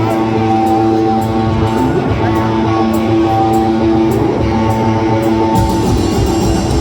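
Live rock and roll band playing, led by electric guitar with held notes over a regular beat; the sound fills out with heavier bass and drums about five and a half seconds in.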